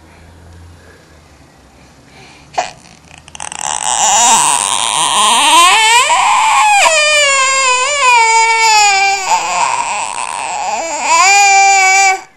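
An 18-month-old toddler crying loudly. The wail starts about three seconds in, its pitch rising and falling, and goes on until it stops suddenly near the end.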